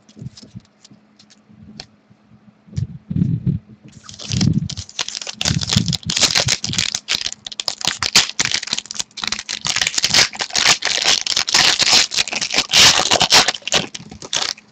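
Trading card pack wrapper crinkling and cards being handled, with soft thumps at first and then dense crackling from about four seconds in that stops suddenly near the end.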